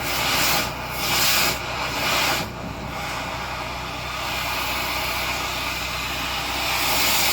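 Rushing air in a dryer vent duct from power-vacuum duct-cleaning equipment, over a steady low machine hum: a few surging hisses about a second apart, then a continuous hiss that grows louder near the end.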